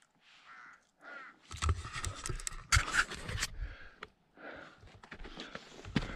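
A person panting hard, out of breath after the climb, with short breaths coming about once a second. Louder scraping and rustling sounds in the middle.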